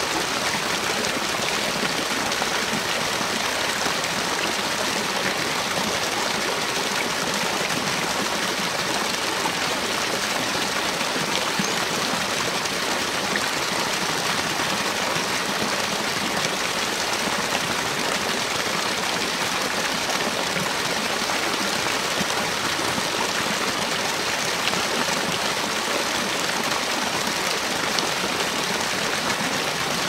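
Small waterfall pouring onto rocks into a foaming pool: a steady, even rush and splash of falling water.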